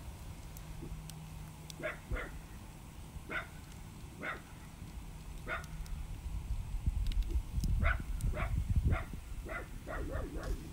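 Dogs barking: single barks spaced a second or so apart, then a quick run of barks near the end. Under them a wood campfire crackles with small sharp pops.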